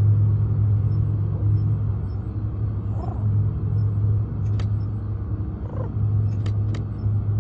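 Steady low electronic hum from the briefcase console, with a few light clicks and a couple of short soft calls from the pigeon.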